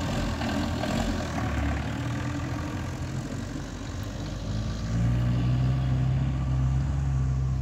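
Old panel van's engine running with a smoky exhaust, then pulling away. From about five seconds in, a louder, steady low engine drone takes over.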